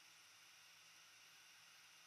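Very faint, steady rushing of the waterfall, close to silence, with a low steady hum under it.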